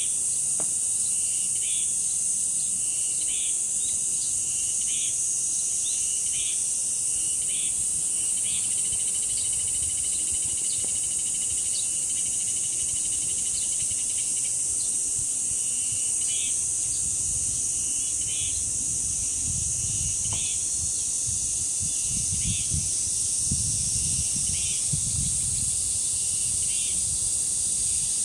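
Cicadas droning in a steady, high continuous buzz, with short chirps repeating about once a second over it. Wind gusts on the microphone add a low rumble from about halfway through.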